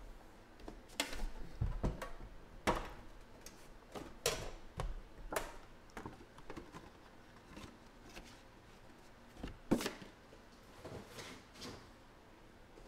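Sealed cardboard trading-card boxes (Panini Immaculate Baseball) being handled and shifted on a table: scattered light knocks and scuffs, the sharpest a little under ten seconds in.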